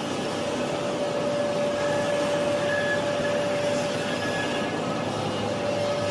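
A paper sheeting line for A4 reams running, its reels of paper web unwinding and feeding through the machine: a steady mechanical noise with a constant mid-pitched hum.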